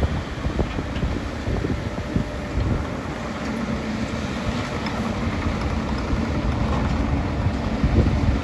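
A large engine runs steadily with a low rumble and occasional small knocks, typical of heavy equipment clearing demolition rubble.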